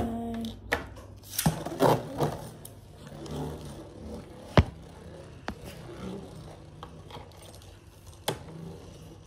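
A Beyblade Burst top spinning in a plastic stadium, with a steady whir and scattered sharp clicks and knocks. The loudest knock comes about four and a half seconds in.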